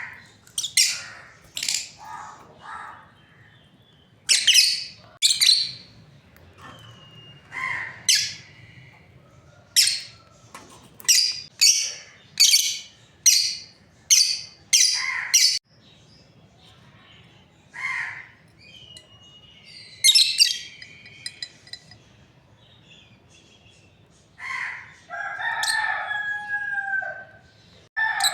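Lovebirds calling with short, shrill chirps, many in quick succession, then a longer call with falling pitch near the end.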